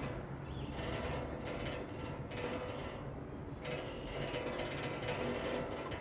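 Ski lift running: a steady mechanical rattle and whir of the lift's wheels and haul rope, with a faint steady hum.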